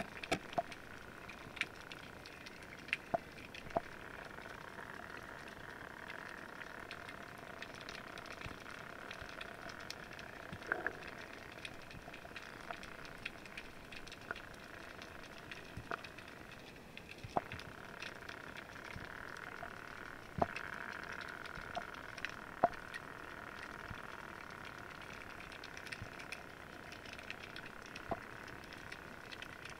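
Underwater ambience picked up by a camera in its waterproof housing: a steady hiss with scattered sharp clicks and crackles a few seconds apart.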